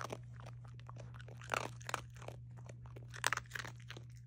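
Miniature dachshund crunching and chewing pieces of dry dog kibble, in irregular bursts of crunches about a second and a half in and again a little past three seconds.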